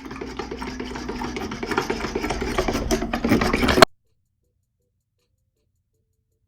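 Hand whisk beating eggs into water and vinegar in a bowl: rapid, rhythmic clicking and scraping of the wires against the bowl, getting louder, then cutting off abruptly about four seconds in, followed by dead silence.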